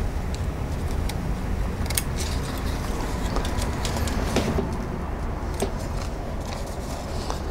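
Thin repair tissue being trimmed away around the edge of a paper envelope: a few scattered, irregular snips and ticks. Under them runs a steady low rumble.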